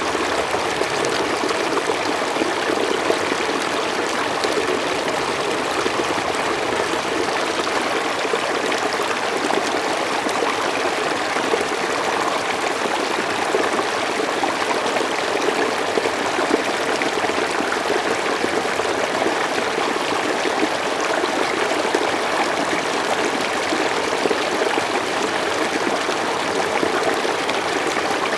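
Mountain stream flowing steadily over rocks, a continuous even rush of water.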